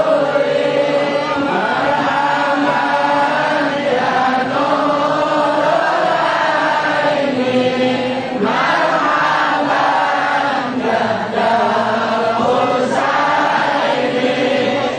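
A large crowd of men chanting an Islamic devotional chant together. The melody is slow, with long held notes that rise and fall, and there are brief breaks between phrases.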